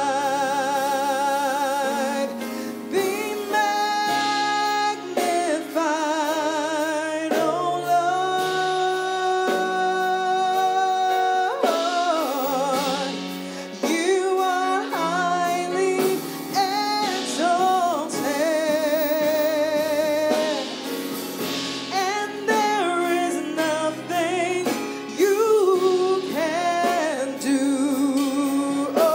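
A woman singing a slow worship song into a microphone, holding notes with vibrato, over chords played on a Yamaha MOXF8 keyboard.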